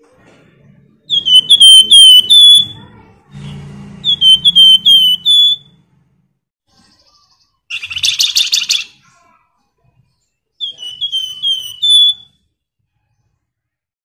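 A caged flamboyan songbird singing three short phrases of about five loud, downward-slurred whistles each. A harsh buzzing rattle comes about eight seconds in.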